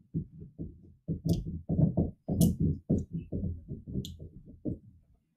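Dry-erase marker writing on a whiteboard: a run of short, quick scratchy strokes as the letters are formed, with a few sharper ticks of the tip against the board.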